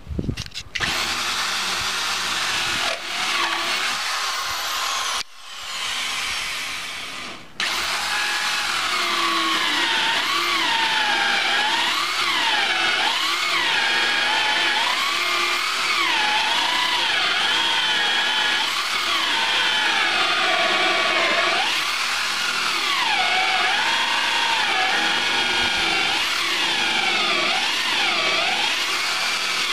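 Corded electric drill running a hole saw into a wooden floorboard, its whine wavering up and down in pitch. It cuts out for a moment about five seconds in and runs quieter for two seconds before going on steadily and louder.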